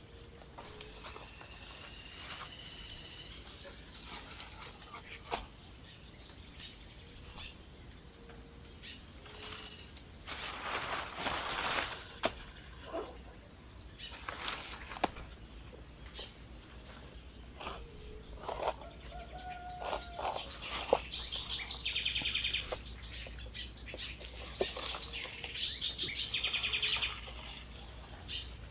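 Tropical farm ambience: a steady high-pitched insect drone with birds chirping and calling at intervals, and a few brief rustles.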